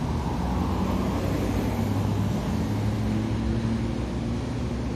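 Steady low rumble of street traffic, with a faint engine hum underneath.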